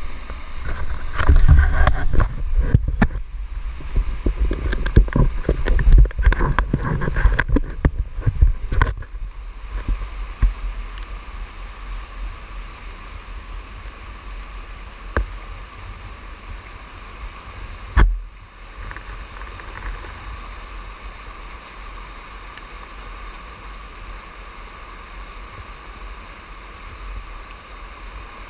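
Close, irregular knocks and rumble of a camera being handled for the first nine seconds or so, then the steady rush of river whitewater surging through rapids. There is one sharp knock about halfway through.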